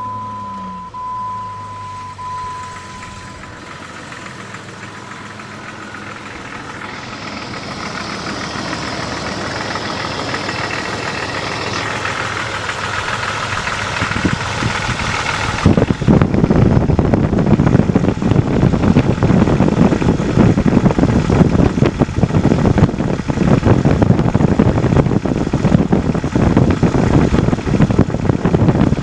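Jeep Grand Cherokee WJ 4.0-litre inline-six running with a rapid knocking clatter that the owner takes for the timing chain or piston slap. It starts under an intermittent warning chime, and about halfway through it suddenly becomes much louder and the clatter dominates.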